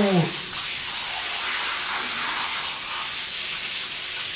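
Water running from a tap into a balloon held on the spout, a steady hiss as the balloon fills.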